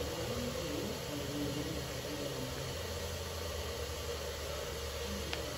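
A steady low mechanical hum with hiss, and one faint click about five seconds in.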